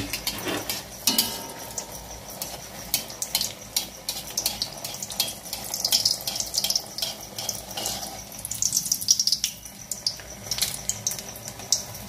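Suji (semolina) pitha batter deep-frying in hot oil in a kadai: steady sizzling dotted with frequent small crackles and pops.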